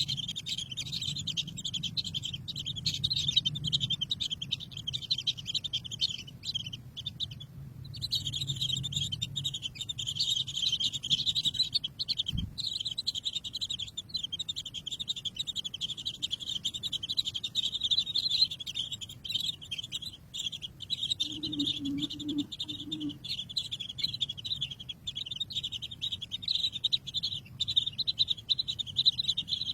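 Birds chirping rapidly and continuously in a high, dense chatter that breaks off for a moment about eight seconds in.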